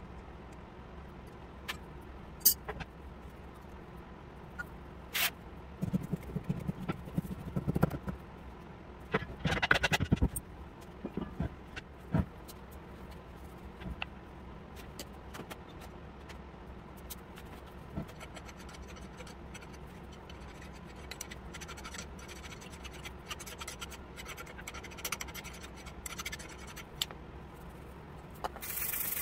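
Workshop hand work: scattered clicks and knocks, then a long run of fast, scratchy scraping strokes.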